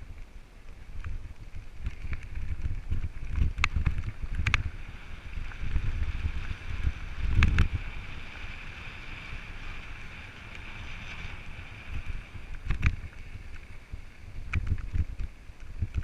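Mountain bike riding down a rocky dirt trail: wind buffeting the camera microphone over a rough rumble of tyres and frame, with several sharp knocks and rattles as it goes over rocks. The loudest knock comes about halfway through.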